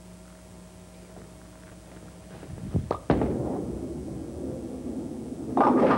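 A bowling ball is laid down on a wooden lane with a thud about three seconds in and rolls with a rumble. Near the end it crashes into the pins.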